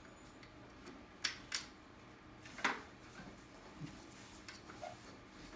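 A few sharp clicks and light handling sounds as tubing is fitted into a peristaltic pump head: two quick clicks about a second in, then a louder one a second later.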